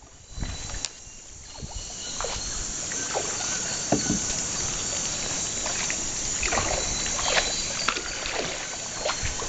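Canoe paddles dipping and pulling through calm water, with small scattered splashes and drips, over a steady high hiss.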